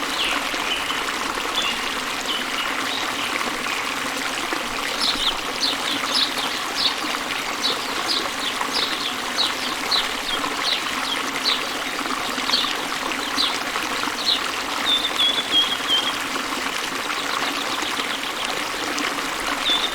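Stream water flowing steadily from a waterfall. Over it a bird gives a series of short, high chirps, about two a second, starting about five seconds in, then a short whistled note.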